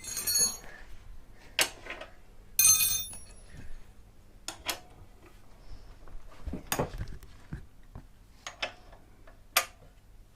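Metal hand tools clinking and knocking against metal, as spanners and sockets are handled to undo a motorcycle's swing arm bolt. Two ringing metallic clinks, one at the start and one about three seconds in, then scattered short clicks and knocks.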